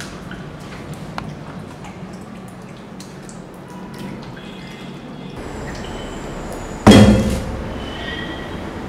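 A man gulping water from a plastic bottle, heard as faint wet swallowing clicks, then a single loud thump about seven seconds in that dies away within half a second.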